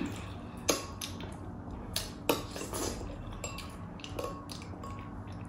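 Metal spoon clinking against a small glass bowl of chili sauce, about five or six light clinks, some leaving a brief ring.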